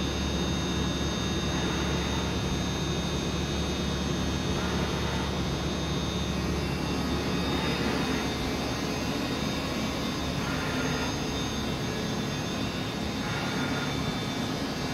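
VDF DUS 800 CNC lathe running under a test program, spindle and slide drives working: a steady machine hum with a few constant whining tones. The deepest part of the hum drops back about two-thirds of the way through.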